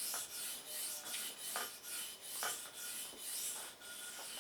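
Steel knife blade, a Spyderco Delica 4 in VG10, being stroked back and forth on the 1000-grit side of a water stone: a repeated gritty scraping hiss, a couple of strokes a second.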